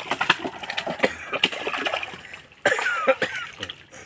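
Wet splashing and slapping as hands sort a netful of small live fish in shallow water, in quick irregular bursts. About two-thirds of the way in comes a short vocal sound, like a cough or call.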